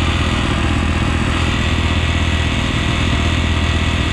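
Dirt bike engine running steadily at low revs, with no revving.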